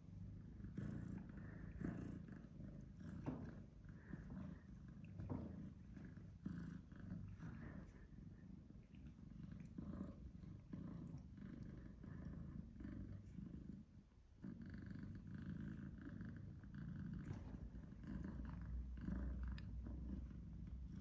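A domestic cat purring steadily close by, a low pulsing rumble that breaks off briefly about two-thirds of the way through, with soft scuffles and rustles of fur and bedding as two cats paw at each other.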